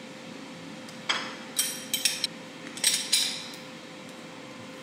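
Yellow metal hand-held lever citrus squeezer clinking sharply about six times as it is worked hard on a lime piece too big to squeeze easily. The clinks fall between about a second and three and a half seconds in.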